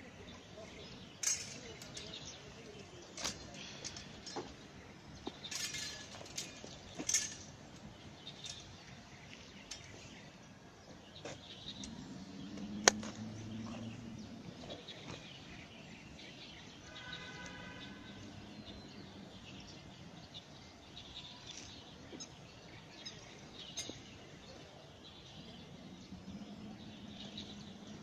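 Birds chirping and calling on and off, with one sharp click about halfway through.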